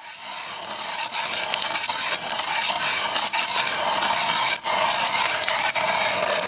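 Hand-cranked ice auger boring through clear lake ice: a steady scraping of the blades shaving off ice chips.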